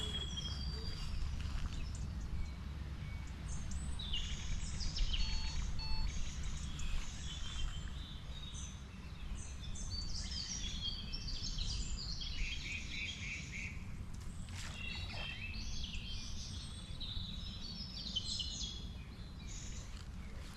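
Many birds chirping and singing, short calls and trills overlapping one another, over a steady low rumble.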